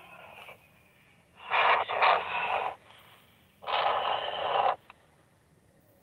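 Handheld two-way radio receiving bursts of harsh, thin-sounding transmission noise: a short one that ends about half a second in, then two loud bursts of about a second each that cut off abruptly, with a squelch click right after the last.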